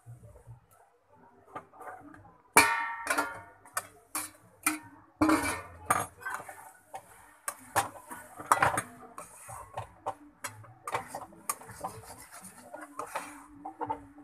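A stainless-steel plate used as a lid clanks and rings briefly as it is lifted off the pan about two and a half seconds in. Then a metal spatula scrapes and knocks irregularly against the kadai as steaming cabbage is stirred, with a soft hiss behind it.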